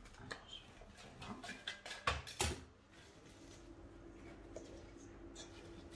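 Hands handling bread dough in a stainless steel mixing bowl: scattered light knocks and rubbing, with two sharper knocks a little after two seconds in. A faint steady hum sets in at about three and a half seconds.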